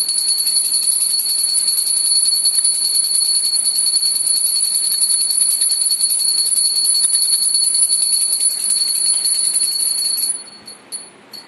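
Small brass prayer hand bell rung rapidly and continuously. It stops about ten seconds in, and three last single strikes follow.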